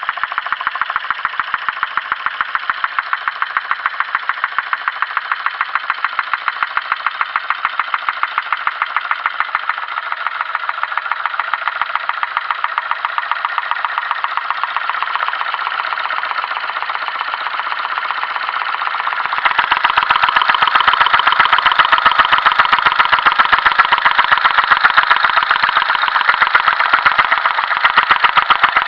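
Homemade twin-cylinder Stirling engine running, its crank linkage and flywheel giving a rapid, even clatter of knocks. It grows louder about two-thirds of the way through.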